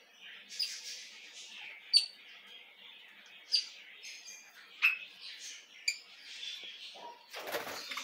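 Red-rumped parrots chirping and chattering softly, with four sharp short calls standing out over the chatter and a louder noisy burst near the end.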